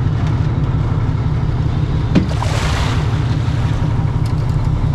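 Fishing boat's engine running with a steady low rumble. A brief hiss rises and falls a little over two seconds in.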